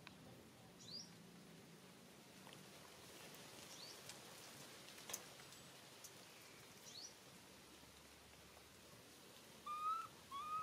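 Quiet background with a few faint, high rising chirps and one faint click; near the end, two short squeaky calls close together, the loudest sounds, from a baby monkey stuck on a tree trunk.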